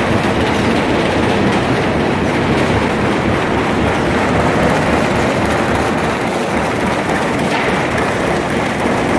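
High-speed corrugated-board flexo printer-slotter-die-cutter running in production. It makes a loud, steady mechanical din with a dense rapid clatter as boards are fed through the rollers.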